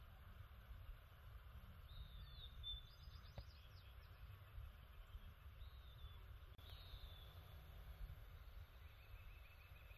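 Faint bird calls, a few short chirps and whistles and a brief trill near the end, over a low steady background rumble.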